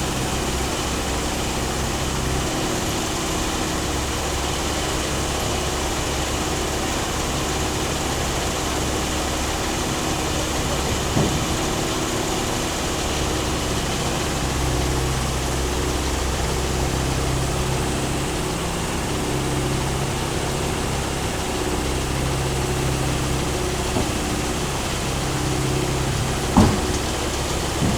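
Hitachi 138 hydraulic excavator's diesel engine running steadily, its note changing in stretches of a few seconds as the machine works. A short knock comes about eleven seconds in, and a sharper one near the end.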